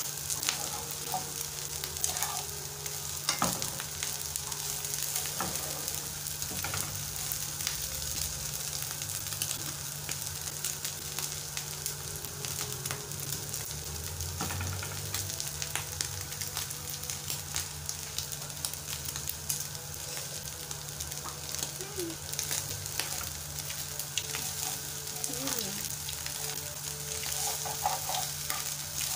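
Omena, small dried lake sardines, frying in oil in a frying pan with a steady sizzle and crackle. A metal spoon stirs them now and then, clicking and scraping against the pan.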